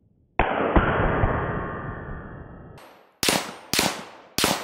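A muffled, deep boom with two hits close together at its start, fading over about two seconds, then three sharp, loud shots from a semi-automatic .300 Win Mag rifle fired in quick succession, about half a second apart, into steel targets.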